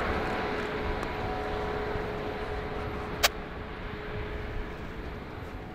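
Airbus A220-300's Pratt & Whitney PW1500G geared turbofan engines at taxi power, a steady whine over a rushing hum that slowly fades as the jet moves away. A single sharp click about three seconds in.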